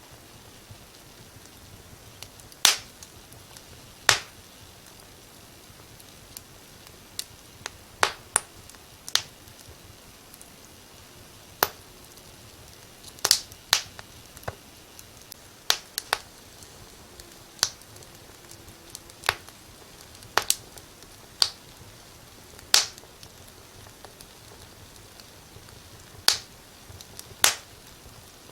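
Wood fire crackling in a fireplace: sharp, irregular pops and snaps over a low steady hiss, some of them loud.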